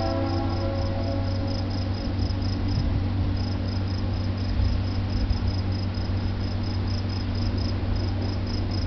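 Crickets chirping in a steady, even rhythm of a few chirps a second over a low, steady rumble. The last of a train horn's chord fades out in the first second or two.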